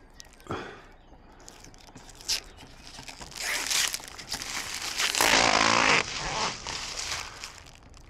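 Protective plastic film being peeled off a siding panel and handled, a rustling noise with scattered clicks that builds from about three seconds in and is loudest around five to six seconds.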